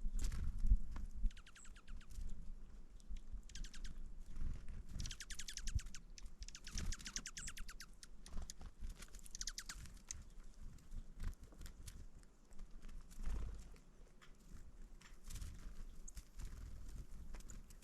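A bird's rapid clicking chatter in several short bursts of a second or two, over a low rumble.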